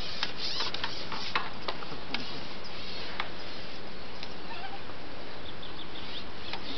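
Outdoor lakeside ambience: a steady hiss, with a run of sharp clicks over the first three seconds and faint short chirps, like small birds, a few seconds in.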